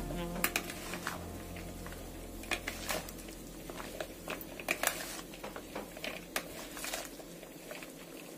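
Plastic salad servers tossing shredded raw vegetables in a plastic bowl: irregular light clacks of plastic on plastic over a crisp rustle of the cabbage and greens.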